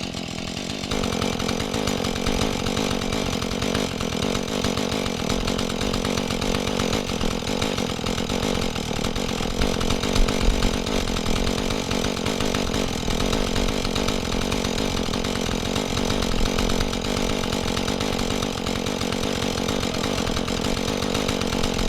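Husqvarna 435 two-stroke chainsaw opening up to full throttle about a second in, then running steadily at high revs as it cuts into a tree being felled.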